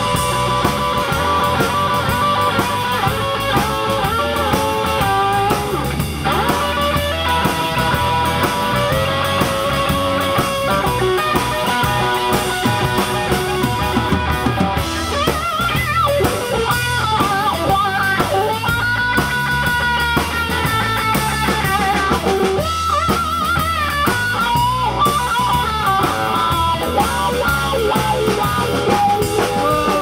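Rock band's instrumental break: a Les Paul-style electric guitar plays a lead with bent and held notes over bass guitar and a drum kit, with no singing.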